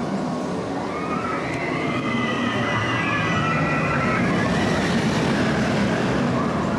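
The Expedition Everest roller coaster train rushes past with a building rumble while many riders scream, their high wavering voices overlapping and rising and falling over a few seconds.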